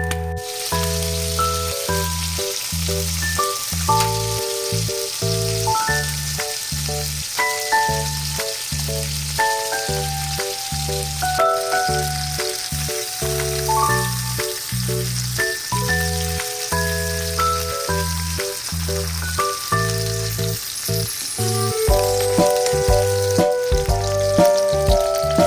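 Food sizzling steadily as it fries in a pan, with background music playing over it; the sizzle stops near the end.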